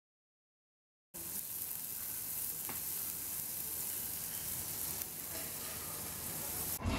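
Slices of meat sizzling steadily on a Korean BBQ tabletop grill plate over a gas burner, starting suddenly about a second in after dead silence.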